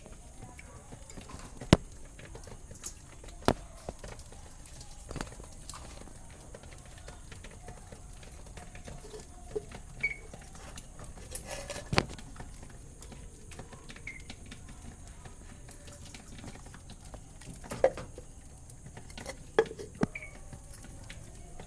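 Pet birds moving about: irregular sharp taps and knocks, with a few short, soft chirps.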